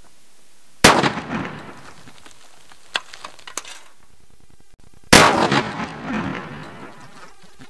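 12-gauge shotgun firing a slug: two loud shots about four seconds apart, each trailing off in an echo, with the slug bursting a can of tomato puree.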